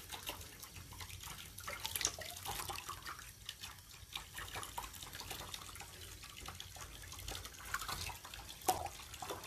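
Faint drips and small splashes of water falling from a hand onto a wet rabbit in a basin, scattered and irregular, with a few louder splashes about two seconds in and near the end.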